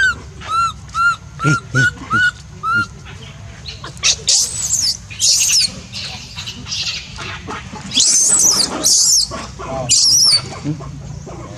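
Newborn baby macaque crying: a run of short, arching coos about two a second, then from about four seconds in, louder, harsh, high screeching cries in a few drawn-out bouts. These are the distress calls of an infant left on the ground by its mother.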